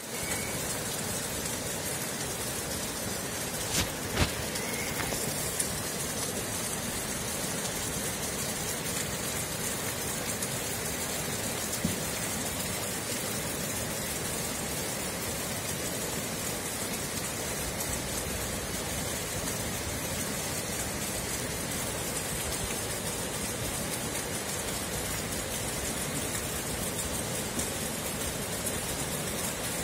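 Steady hiss of rain together with the rush of a muddy flash-flood torrent, with a few sharp knocks around four seconds in and once more about twelve seconds in.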